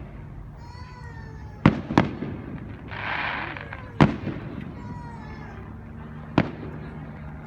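Aerial fireworks bursting at a distance: sharp booms about one and a half seconds in, a second later, near the middle and once more about two-thirds through, with a short hiss between them.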